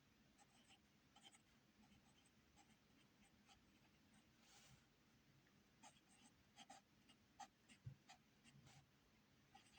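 Faint handwriting sounds: a string of small taps and scratches of a pen on a writing surface, busier in the second half, with a longer scratch about four and a half seconds in.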